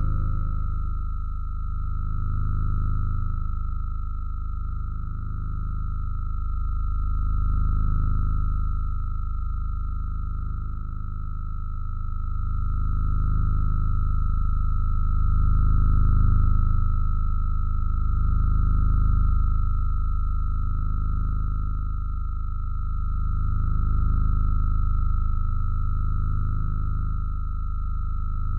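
Ambient electronic drone: a steady high pure tone held over a deep low hum, the whole swelling and fading slowly every few seconds.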